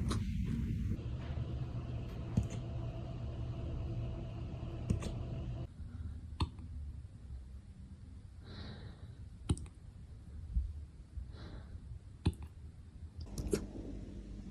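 A puppy hiccuping: short, sharp clicks, about one every two seconds, with a couple of softer breathy ones between.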